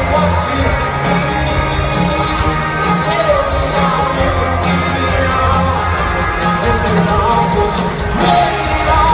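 Live pop-rock band playing over a steady beat, with a singer's voice gliding over the music, heard from the stands of a large arena.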